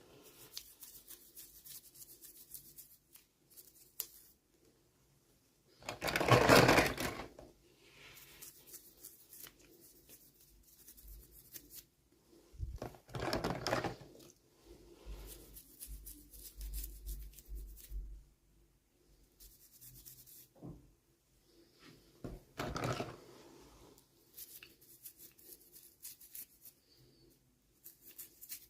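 Toy packaging being opened and handled: plastic and paper rustling and crinkling, with a few small clicks and taps. Louder bursts of crinkling come about six, thirteen and twenty-three seconds in.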